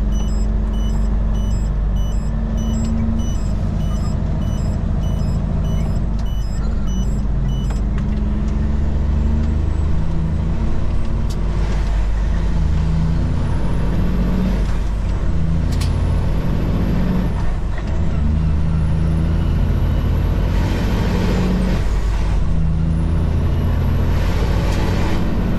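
Kenworth road train's diesel engine heard from the cab, pulling away and working up through the gears, its pitch stepping at each shift while a high turbo whistle rises and falls. A turn signal ticks about twice a second and stops about eight seconds in, and a few short sharp sounds come at the gear changes.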